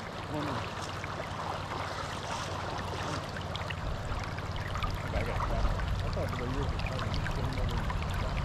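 River water flowing and rippling steadily, with a low hum underneath that grows louder about halfway through.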